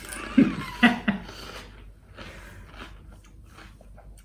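A person biting into and chewing a pani puri, the crisp hollow puri shell crunching. A few short voiced mouth sounds come about half a second to a second in, followed by a run of faint crackly chewing sounds.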